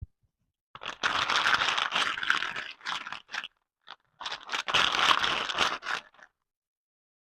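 Blind-bag packaging being crinkled and handled in two bursts of a couple of seconds each.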